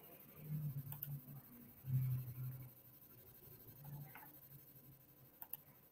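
Quiet room tone over an online-class audio feed: a faint low hum swells briefly three times, with a few soft sharp clicks.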